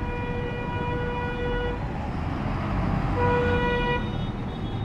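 A bus horn sounding two long, steady blasts, the first nearly two seconds long and the second shorter, about three seconds in, over the low rumble of the bus's engine.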